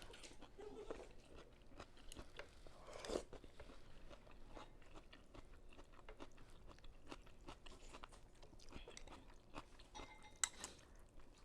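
Faint chewing and eating sounds: soft wet mouth clicks and small crunches, with a slightly louder click or slurp about three seconds in and again near the end.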